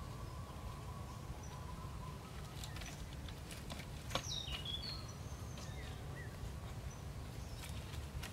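Outdoor ambience: a few short bird chirps over a steady low rumble, with scattered small clicks and rustles from the thatch roof being handled. A sharp click about four seconds in is the loudest sound, followed at once by chirps.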